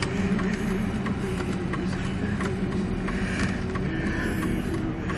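A car's engine running at idle, heard from inside the cabin as a steady low hum.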